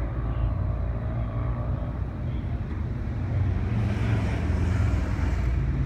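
Vehicle engines running with a steady low rumble, and a motorcycle passing about four seconds in, its noise swelling and then fading.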